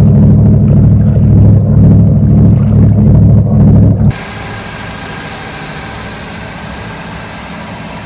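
Twin 1988 MerCruiser 5.7-litre BlueWater V8s idling after start-up, a deep steady rumble heard at their wet exhaust outlets. About four seconds in the sound cuts abruptly to a much quieter, hissier running sound with a faint steady whine.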